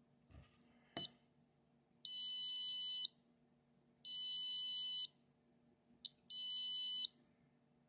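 Small buzzer driven by an Arduino Nano, with its push button held down, sounding a high-pitched beep about a second long with about a second's gap between beeps: three full beeps, and a fourth starting at the very end. There are short clicks about a second in and again just before the third beep.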